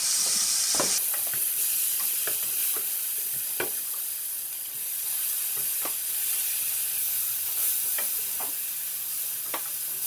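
Onion-tomato masala sizzling in a nonstick pot, with a little water just added to fry the spices. A wooden spatula stirs it, knocking and scraping against the pan at irregular intervals.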